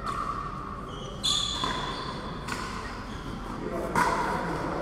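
Sharp knocks of pickleball play, a ball popping off paddles and bouncing on the court, three or four in all, echoing in a large hall; the loudest comes about four seconds in.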